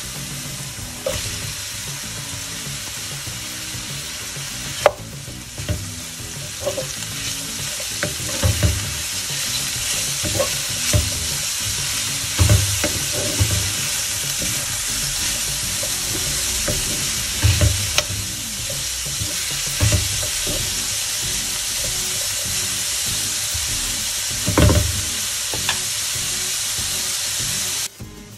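Grated carrot and chopped leek stems sizzling in hot oil in a pot, stirred with a wooden spoon that knocks and scrapes against the pot every few seconds. The sizzle cuts off sharply near the end.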